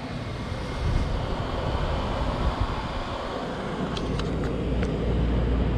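Amana PTAC air conditioner running: a steady rush of fan air over a low rumble, the rumble growing a little louder about four seconds in.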